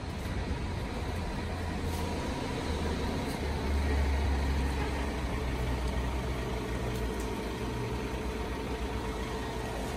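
A motor vehicle engine running with a steady low hum, growing louder for a couple of seconds around the middle and then easing back.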